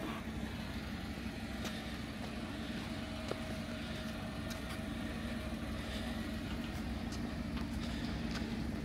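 Off-road vehicle's engine running with a steady low hum, with a few faint clicks.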